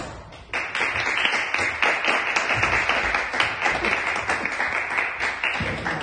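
Audience applauding: a short click right at the start, then dense clapping that begins about half a second in and stops just before the end.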